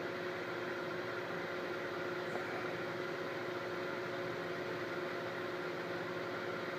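Steady mechanical hum of a small appliance motor running, with a few held tones over an even hiss.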